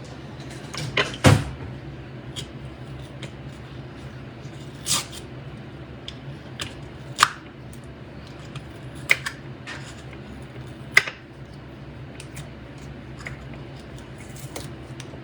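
Scattered sharp clicks and taps of a spice jar being pried open with a knife and measuring spoons being handled, the loudest about a second in, over a steady low hum.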